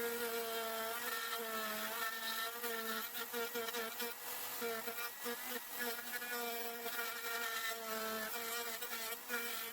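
Electric router running and cutting out a half lap joint in wood, a buzzing whine whose pitch wavers and dips repeatedly as the bit takes material.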